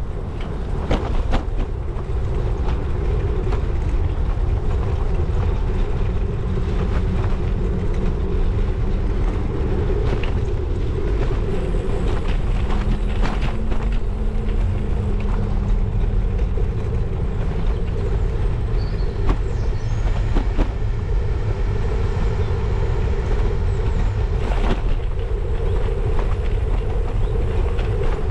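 Bicycle rolling along a paved footpath, heard from a handlebar-mounted camera: a steady low rumble of tyres and wind, with scattered knocks and rattles as the bike goes over bumps in the path.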